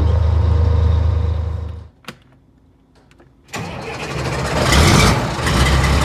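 Truck engine running steadily, heard inside the cab, cut off abruptly about two seconds in. After a second and a half of near quiet with a single click, another engine comes in loud, swells about five seconds in, then settles into a steady low idle.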